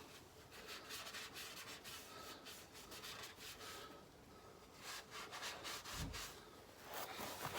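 Irregular scraping and rubbing as a person slides on their back under a car, with a dull thump about six seconds in.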